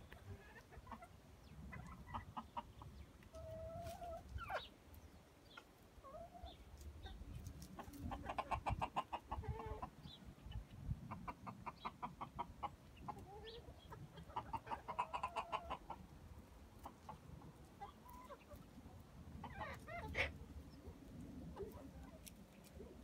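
Domestic hens clucking: scattered short calls, and three quick runs of rapid clucks in the middle.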